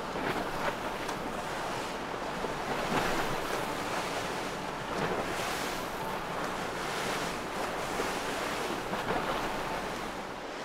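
Wind buffeting the microphone over rushing water and waves, a steady noisy rush that swells every second or two.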